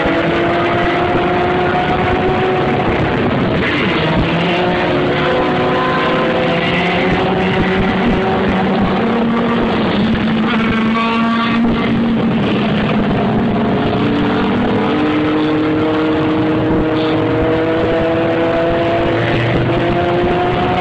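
Motorcycle and traffic engines running steadily at road speed, their pitch drifting slowly up and down, over continuous road and wind noise.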